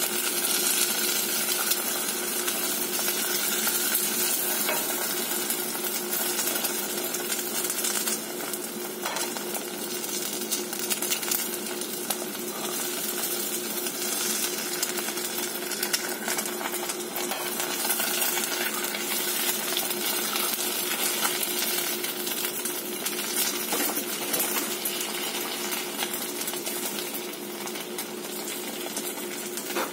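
Eggs sizzling and crackling in a hot cast-iron skillet, a steady frying hiss with frequent small pops and clicks. A steady low hum runs underneath.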